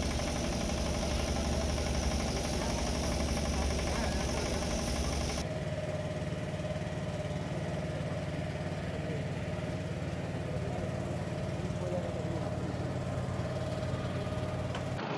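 An engine idling steadily, with voices in the background. The sound changes abruptly about five seconds in.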